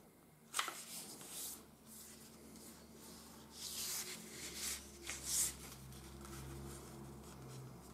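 Coated paper being folded and creased by hand: a few short rustles and rubs as fingers press and run along the folds, the loudest a little past five seconds in.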